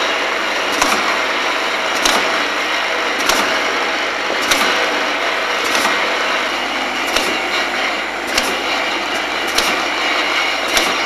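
Automatic aerosol can filling line running: a steady mechanical hum and hiss with a sharp clack repeating about every 1.2 seconds.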